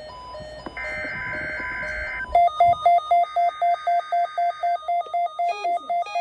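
NOAA Weather Radio SAME header data bursts opening the required weekly test: buzzy digital tone bursts, the second about a second after the first. About two seconds in they give way to fast electronic beeping, about four beeps a second, with higher tones stepping up and down over it.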